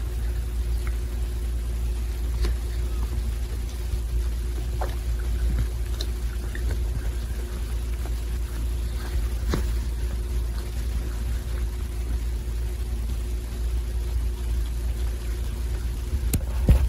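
American shorthair tabby cat grooming himself, licking his fur and front paw: soft licking clicks now and then over a steady low rumble.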